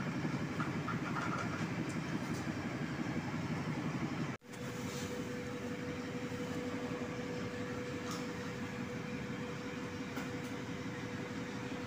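Steady low rumbling background noise. It cuts out abruptly for a moment about four seconds in, then carries on with a steady hum added on top.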